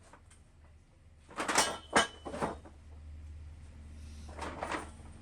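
Toyota Supra Mk3 engine idling low just after starting. A few sharp clunks and knocks come about a second and a half in, and more near the end.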